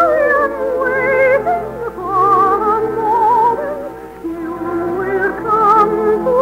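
Operetta music: a melody with strong vibrato over sustained accompaniment chords, the tune moving through several notes and easing briefly about four seconds in.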